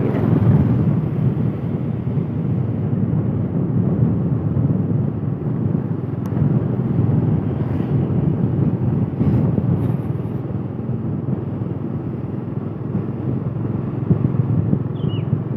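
Steady road and engine noise from a moving vehicle.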